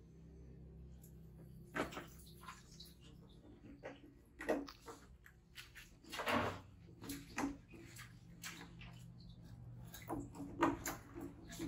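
Scattered light knocks and plastic rattles, one every second or two, as baby macaques scramble on a plastic stool and handle a plastic bottle, over a low steady hum; the loudest knocks come about six seconds in and near the end.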